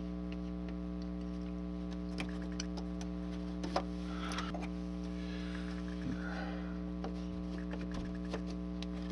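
Steady electrical mains hum, several tones stacked on one another, with a few faint light clicks and soft handling noises as a small styrene model building is set down and moved by hand.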